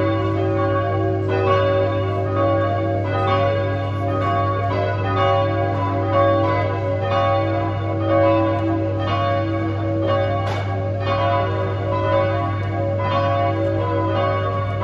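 Ring of three church bells, tenor 6-0-6 in B, rung full-circle by rope, striking one after another in a steady repeating sequence with each bell's tone ringing on. A steady low hum runs underneath.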